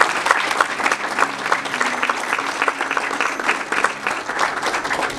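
An audience applauding: many people clapping in a steady, dense patter.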